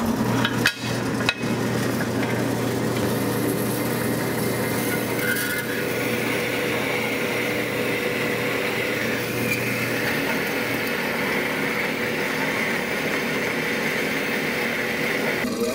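Vertical bandsaw running and cutting through a small steel bar, a steady whir with the blade's rasp as it roughs out a curved notch. A few knocks come in the first second and a half as the piece is set against the blade.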